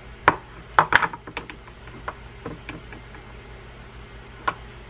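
Metal parts of a vintage Ocean City Brigantine reel and a screwdriver clicking and knocking as they are handled on a wooden workbench during disassembly: a sharp click just after the start, a louder cluster of clicks around one second, lighter taps after, and one more click near the end, over a steady low hum.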